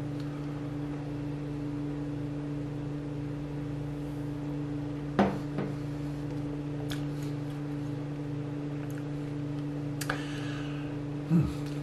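Steady low hum with a fainter higher overtone, and a few small clicks and one soft knock about five seconds in.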